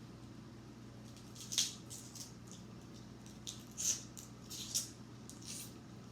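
Close-miked eating sounds from a crab-leg and salad meal: a series of short, wet, crackly chewing and squishing noises, the loudest about one and a half and four seconds in, over a faint steady low hum.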